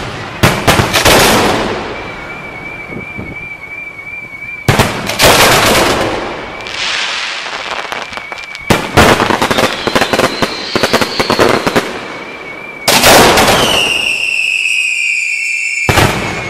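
Fireworks firing at close range: clusters of loud bangs from shells launching and bursting, each followed by a crackling decay. A high whistling tone runs through much of it, and a whistle falls in pitch near the end.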